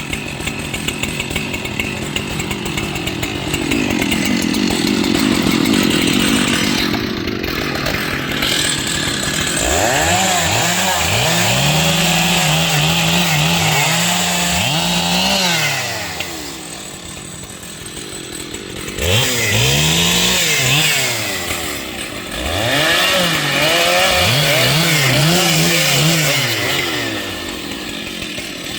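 Large professional chainsaw revving up and held at high speed for several seconds, dropping back to a low idle, then revved up and down again in shorter bursts several times.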